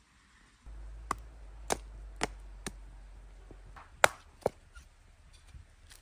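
A knife chopping into a piece of firewood to split off kindling: about six sharp wooden knocks at uneven intervals, the loudest about four seconds in.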